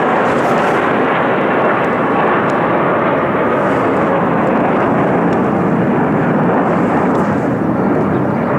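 Loud, steady roar of military jet fighter engines as a formation of four flies overhead.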